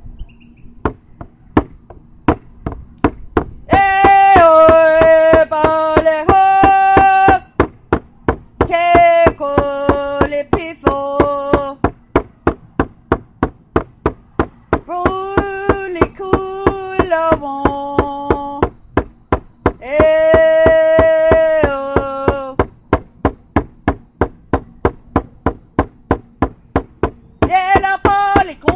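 A voice singing long held notes in short phrases of two or three, over a steady knocking beat of about two a second.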